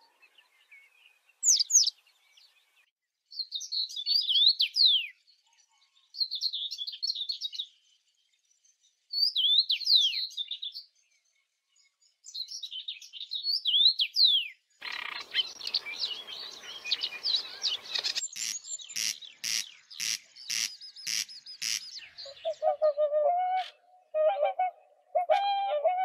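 Citrine wagtail singing short, high twittering phrases about every three seconds. After a cut and a stretch of hiss, a Eurasian wryneck gives a quick run of about ten evenly spaced sharp calls. Near the end, whooper swans call with lower, trumpeting notes.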